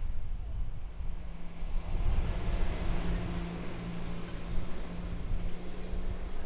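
A small box delivery truck drives past close by and carries on down the street, its engine hum and tyre noise swelling about two seconds in and then staying steady as it pulls ahead, over a low rumble.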